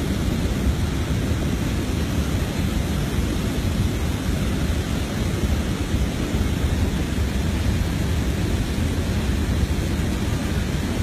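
Rushing river water running below, a steady, even roar with a deep rumble.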